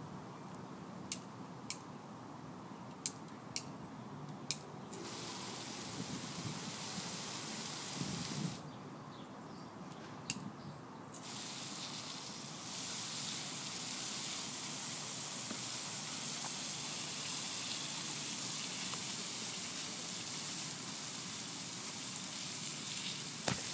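Water spraying in a steady hiss that stops and starts again twice, used to cool off a basset hound; during the first pause there are several sharp clicks.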